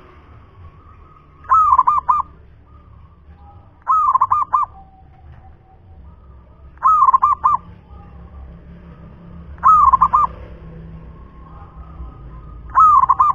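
A local Javanese zebra dove (perkutut) cooing: five phrases about every three seconds, each a quick run of several notes.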